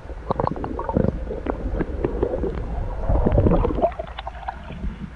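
Muffled water gurgling and sloshing heard through an underwater camera, over a steady low rumble, with scattered knocks and clicks. The gurgling swells for about a second near the middle and then eases.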